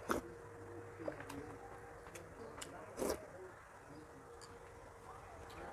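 Close-up eating sounds: a slurp from a spoon of soup just after the start, mouth clicks and lip smacks while chewing, and another loud mouth sound about three seconds in, over a faint steady hum.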